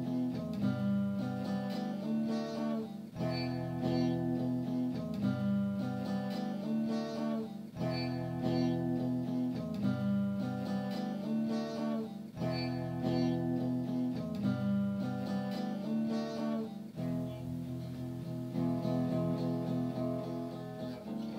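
Background music: an acoustic guitar strumming chords in a repeating pattern.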